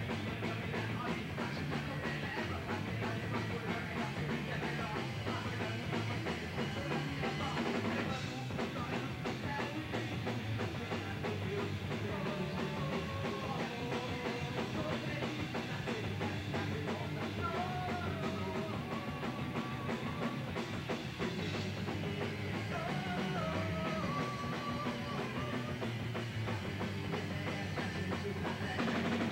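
Punk rock band playing live: electric guitar, bass and drum kit going at full tilt, with a singer's voice shouted over them, standing out most in the middle of the stretch.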